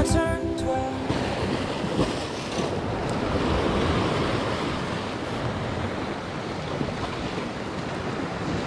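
Sea surf breaking and washing over a rocky shoreline, a steady rush that swells a little partway through, with wind buffeting the microphone. Background music dies away in the first second.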